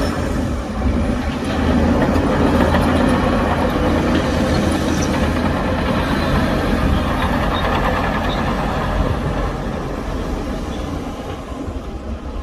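Heavy diesel earthmoving machinery running steadily under load, with a deep engine drone and scattered metallic clanks, easing off a little near the end.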